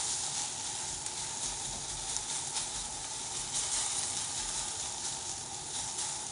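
Sliced onions and bell peppers sizzling steadily in a hot stainless sauté pan as they brown, with a few light clicks of tongs against the pan.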